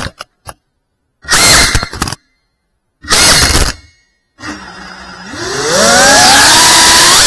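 FPV quadcopter's electric motors cutting out in a crash, with stuttering fragments of sound. Then come two short bursts of motor noise, with silence between and after them. About four and a half seconds in, the motors spin up again with a whine that rises in pitch and grows loud.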